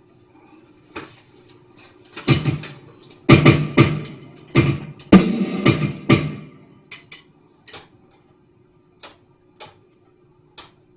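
Drum kit struck by hand: a few seconds of loud hits with ringing cymbal crashes, then a handful of light, scattered taps, over a low steady hum.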